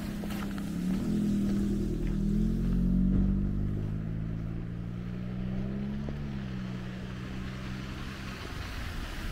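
Car engine running as it drives along a snow-covered street; its hum rises in pitch about a second in, is loudest around three seconds, and fades out a little after eight seconds.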